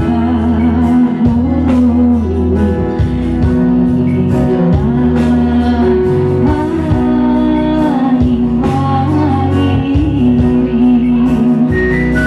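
A woman singing a melody with long held notes into a microphone, accompanied by an electronic keyboard with a bass line.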